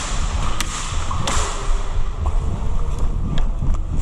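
Rumble and rustle of a player's gear and clothing moving against a helmet-mounted action camera, with a few sharp clicks scattered through it.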